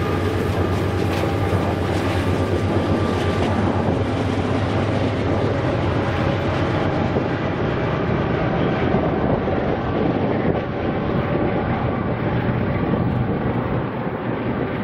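BNSF freight train rolling past and moving away: steel wheels clattering on the rail under loaded hopper cars, then the rear pair of diesel locomotives running with a low steady hum. The sound grows duller as the train recedes.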